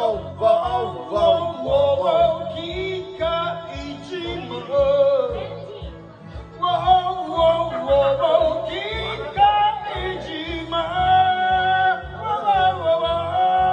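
A man sings with strong feeling into a microphone over a backing track with a steady bass beat. He breaks off briefly about midway, then ends on a long held note.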